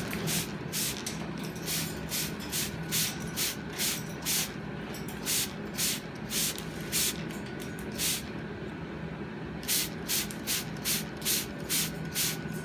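Hand-pump spray bottle squirting water in quick short hisses, about two to three squirts a second with a brief pause near the two-thirds mark, misting pet cockatoos for a shower.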